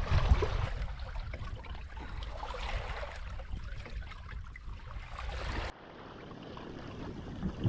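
Water splashing and rushing along the hulls of an inflatable catamaran under sail, over a low rumble. Nearly six seconds in the rumble cuts off abruptly, leaving a quieter wash of water.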